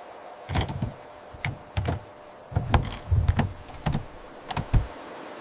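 A series of irregular sharp knocks and clicks, about a dozen, many with a low thump under them.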